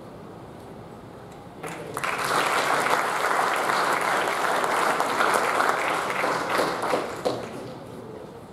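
Audience applause: a crowd clapping that starts about two seconds in, holds steady for about five seconds and fades out near the end.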